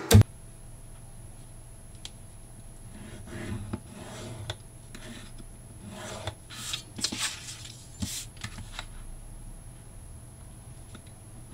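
A pointed tool scoring white card along a metal ruler to make fold lines: a few short scraping strokes with pauses between. A sharp click comes right at the start.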